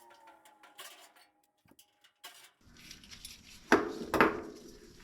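Hand tools clinking against metal while bolts are worked loose: faint ringing metallic taps and ticks at first, then two loud metal clanks close together near the end.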